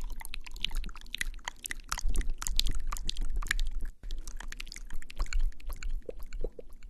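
Close-miked ASMR lipstick application: a dense run of small crackling clicks from the lipstick and lips, with low bumps underneath, pausing briefly about four seconds in.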